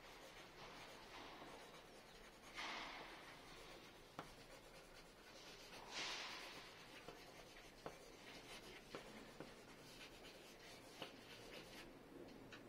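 Colored pencil scratching on paper in quick scribbling strokes, strongest about two and a half and six seconds in, with a few light ticks between strokes.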